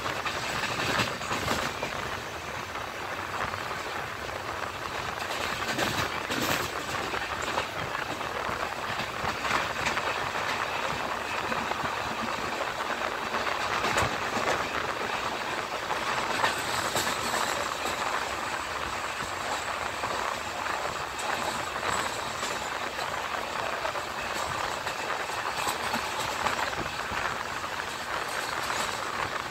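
Passenger train coach running at speed, heard at an open window or door: a steady rushing rumble with scattered sharp clacks of the wheels over the rails.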